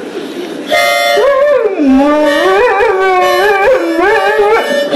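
A harmonica starts a held chord just under a second in, and a large dog howls along over it, its long howl wavering up and down in pitch while the harmonica notes hold steady.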